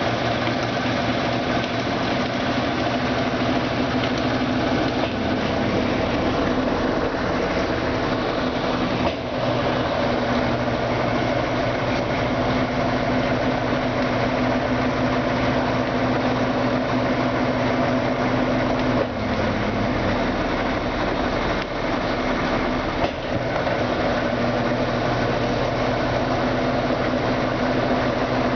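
Brastemp Ative BWL11AR washing machine running its intermediate spin: a steady motor hum and drum whir at constant pitch, with a brief change in tone about two-thirds of the way through.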